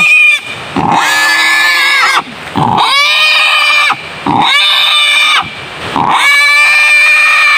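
Captured wild boar squealing in distress while held and tied down: a string of loud, long squeals of about a second each, one after another with short breaks between.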